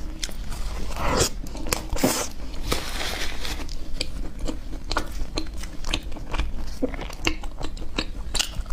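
Someone biting into and chewing chocolate bread, with many sharp, irregular crunches and crackles.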